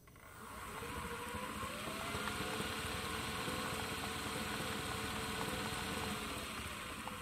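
Brushless electric motor on 40 volts spinning up and driving two car alternators by belt: a whine that climbs over the first couple of seconds, holds steady, then dips a little near the end. The alternators turn unloaded, not yet switched on.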